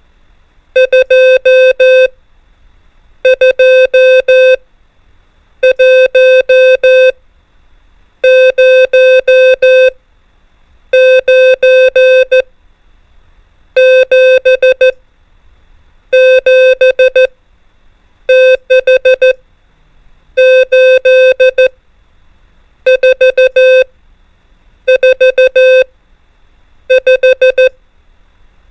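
Morse code practice tone near 500 Hz keying out numbers in short and long beeps. About a dozen separate characters, one every two seconds or so, each a group of five dits and dahs, with silent gaps between.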